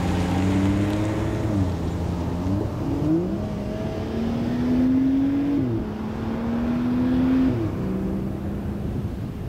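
BMW X3 35i's turbocharged 3.0-litre straight-six engine pulling under acceleration, its note climbing and then dropping sharply about three times, as it drives around a circle.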